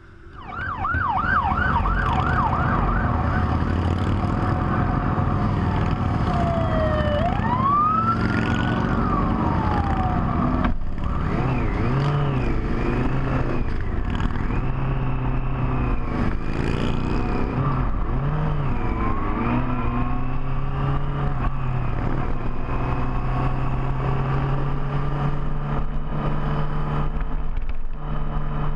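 An electronic siren yelping in fast repeated sweeps, then wailing in slower rising and falling sweeps, over the steady running of big motorcycle engines.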